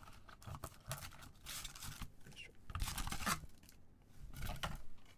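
Foil trading-card packs crinkling and scraping against each other and the cardboard box as they are pulled out by hand, in several short rustling bursts.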